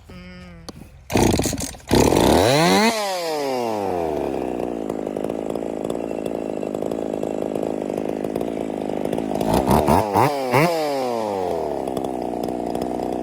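Ported Husqvarna 50 two-stroke chainsaw revved up hard, its pitch falling back to a steady idle about three seconds in. About ten seconds in the throttle is blipped twice, then it settles back to idle.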